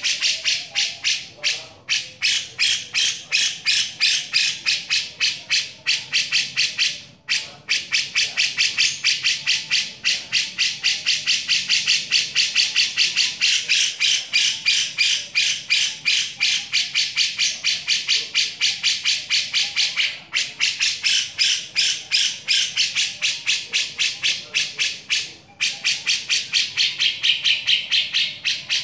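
Cucak jenggot (grey-cheeked bulbul) giving its besetan, a rapid high-pitched chattering of many short notes a second kept up almost without a stop, breaking off briefly a few times.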